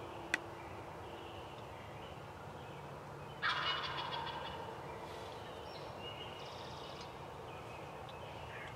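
A wild turkey tom gobbles once about three and a half seconds in, a loud, fast rattling call that fades over about a second. A single sharp click comes shortly after the start.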